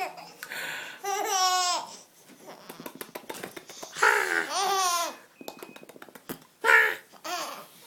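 A baby chuckling in three bursts of pulsing laughter, about a second in, about four seconds in and near the end, each burst led by a short breathy sound.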